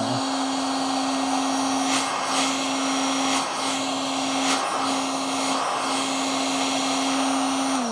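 Electric heat gun running with a steady motor hum and rushing air while it heats paint protection film; the hum breaks off for a moment about four times. Right at the end it is switched off and the motor winds down with a falling pitch.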